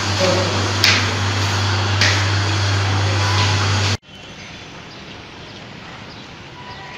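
Footsteps climbing concrete stairs over a steady low hum, with a few distinct steps about a second apart. About four seconds in the hum cuts off suddenly, leaving only faint background noise.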